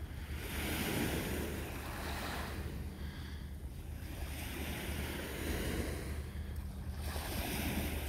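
Small waves washing against shoreline rocks, the hiss swelling and fading every second or two, over a steady low hum.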